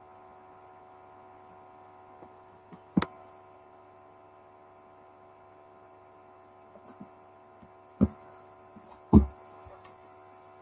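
Steady electrical hum on an open computer microphone, with three sharp knocks about three, eight and nine seconds in.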